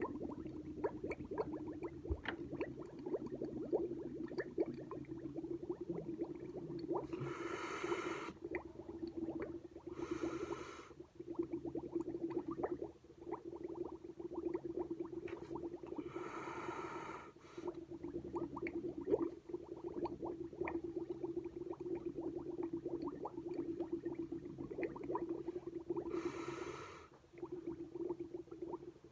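Air blown through a drinking straw into a glass of milk, a steady bubbling gurgle. It is broken four times by a quick breath drawn in through the nose, the lips staying on the straw.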